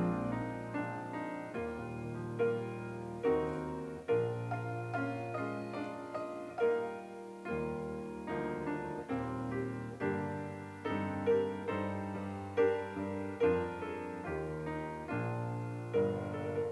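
Solo grand piano playing a slow, gentle piece: each note or chord is struck and left to ring and fade before the next.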